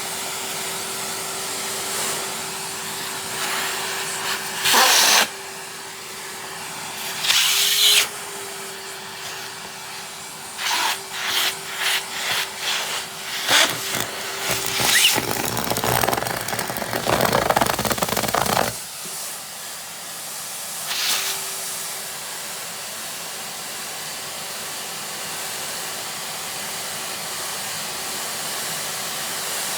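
Vacuum cleaner running with a steady whining motor tone. Through the middle come two loud surges, then a quick run of clattering knocks and a loud rushing stretch of about three seconds, as the nozzle is worked over the floor.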